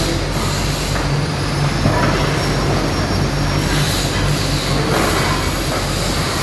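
Cat 320D hydraulic excavator running with a steady low diesel drone, its hydraulics working as the boom and bucket lift, and a faint high whine over the engine noise.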